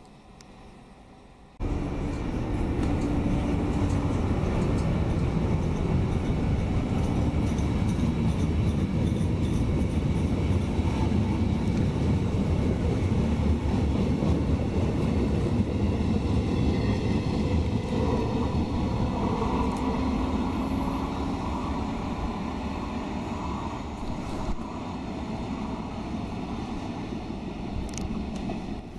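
Regional passenger train passing along the platform: a loud rumble and clatter of wheels on the rails that starts suddenly about two seconds in and eases off over the last few seconds.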